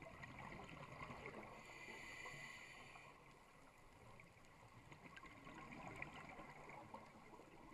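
Faint underwater ambience heard through a camera's waterproof housing: a low hiss with a steady sprinkling of small clicks, and a brief faint whine about two seconds in.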